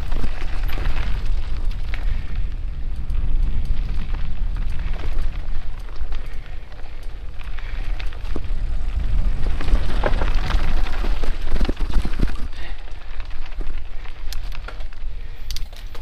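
Heavy wind rumble on a ride-mounted camera's microphone while riding a bumpy dirt trail, with scattered crackles and knocks from the ground and brush.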